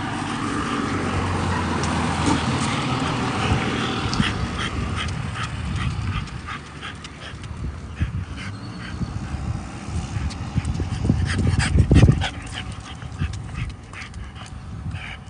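French bulldog making small dog sounds as it trots on a leash, over many light clicks, with a brief low thump about three-quarters of the way through.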